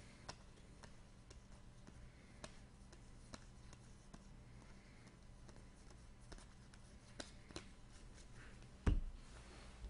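Trading cards being handled on a table: scattered faint clicks and taps, with one louder thump about nine seconds in.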